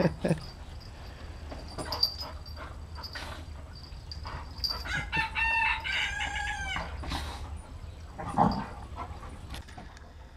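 A rooster crows once, a single call of about two seconds starting about five seconds in, over the scuffling of two dogs play-fighting. Near the end one dog gives a short, louder, lower vocalisation.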